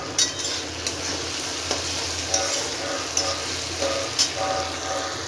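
Tomato-onion masala sizzling in oil in a metal kadhai while a metal spatula stirs and scrapes through it, with a few sharp clicks of the spatula against the pan.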